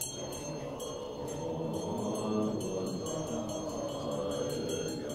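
Group chanting by many low male voices, a steady recitation in a Tibetan Buddhist ritual, with light rapid jingling above it.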